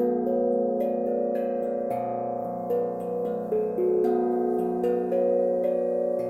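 30 cm Pentaphone glucophone (steel tongue drum) in Raga +3 tuning, playing a flowing melody. Notes are struck two or three times a second, each ringing on and overlapping the next.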